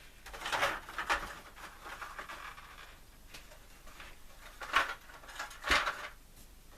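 Handling noise from model railway station parts being pried up off the baseboard: a run of short scrapes and knocks, the loudest about a second in and twice near the end.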